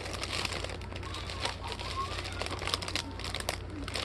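Small plastic bags of diamond-painting drills being handled, crinkling, with rapid irregular light clicks.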